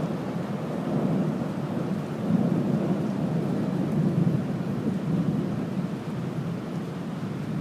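Thunder rumbling, low and rolling, swelling and easing several times, with rain falling.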